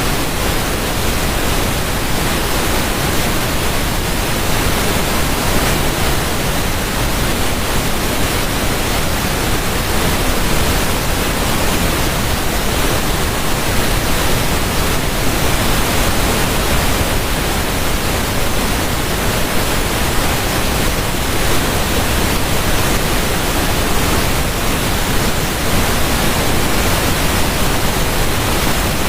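Steady rushing water, like a waterfall: a loud, even hiss that does not change.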